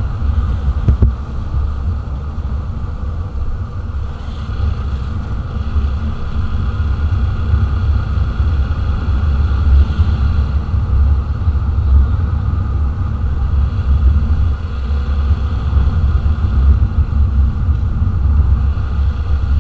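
Onboard sound of a TVS Apache RTR 160 4V's single-cylinder engine cruising at about 45 km/h: a steady low rumble of engine and road, with wind buffeting the camera microphone.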